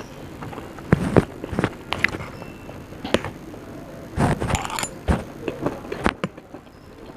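Close-up eating: a string of crisp crunching bites and chewing clicks, the loudest about a second in and a burst around four to five seconds in.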